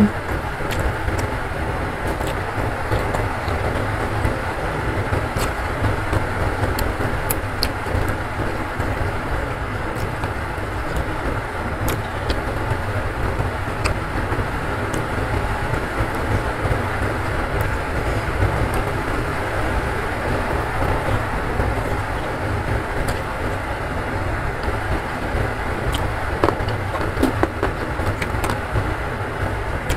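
Heavy rain, a steady rumbling wash. Scattered small clicks of chewing and handling food are heard over it.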